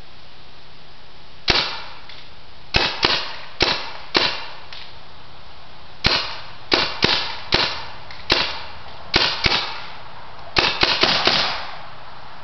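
Bravo One M16-style paintball gun firing about twenty sharp pops, some single and some in quick pairs, ending in a rapid string of shots near the end.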